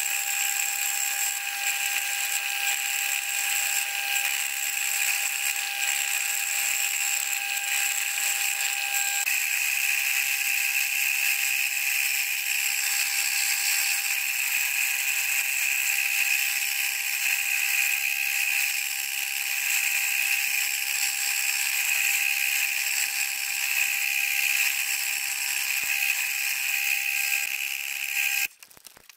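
Milling machine end mill cutting a slot into a metal crosshead block: a continuous, high-pitched cutting whine with several steady tones. The tone changes about nine seconds in, and the sound stops abruptly shortly before the end.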